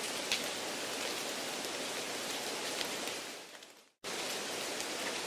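Steady rain-like background noise, an even hiss with scattered faint ticks, added to a listening-test recording to mimic a noisy exam room. It fades away about three and a half seconds in, drops to silence for a moment, then cuts straight back in at the same level.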